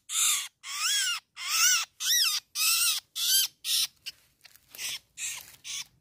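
A captured black-and-white bird held in the hand giving harsh, squawking distress calls, about two a second, growing weaker over the last two seconds.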